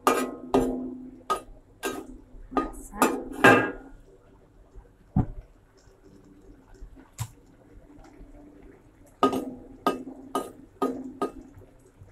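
Metal spatula knocking and scraping against a wok while stirring, with a short ring from the wok after each knock. The strikes come in a quick run over the first few seconds, then only a few scattered ones, then another run about nine seconds in.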